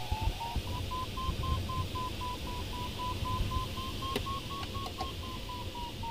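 Glider's electronic variometer beeping rapidly, about four short beeps a second, rising in pitch over the first second, then holding and easing down slightly near the end: the climb tone of a glider circling in a thermal. A low rush of air in the cockpit runs underneath.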